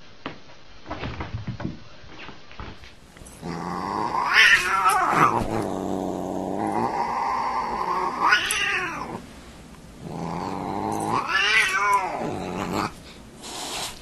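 Cat yowling in two long, drawn-out calls that rise and fall in pitch. A few light knocks come in the first couple of seconds.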